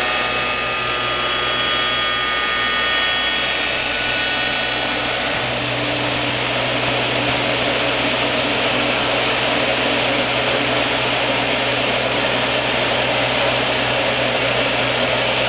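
Lih Woei LH-28-A automatic copy shaping machine running, its cutter spindle shaping a wooden workpiece on the turning table. A high whine of several steady tones fades out about five seconds in, leaving a steady low hum with rougher cutting noise over it.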